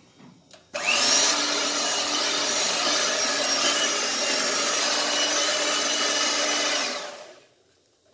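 A small electric kitchen mixer's motor running steadily with a constant whine, switched on suddenly about a second in and winding down near the end, mixing the flour into the cake batter.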